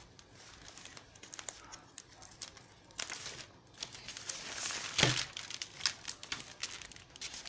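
Clear plastic bag crinkling and rustling with fine crackles as plastic action figures are pulled out of it. It gets louder from about three seconds in, with the loudest crackle about five seconds in.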